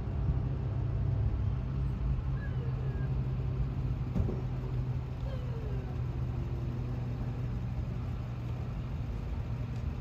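Steady low engine rumble. A few faint chirps and short falling whistles sound over it.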